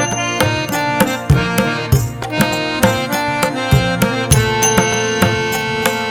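Instrumental music: sustained pitched notes over a regular rhythm of drum strokes.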